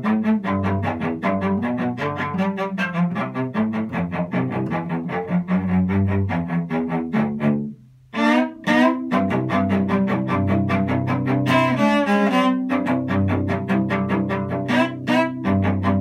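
Solo cello bowed in a fast, even run of short repeated notes; about eight seconds in it breaks off for a moment, then comes back with sliding notes before the quick rhythm resumes.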